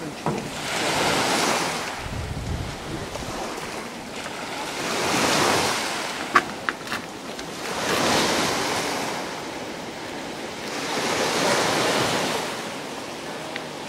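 Sea waves washing onto a rocky, pebbly shore, each wash swelling and fading about every three to four seconds, with wind on the microphone. A few sharp clicks a little past the middle.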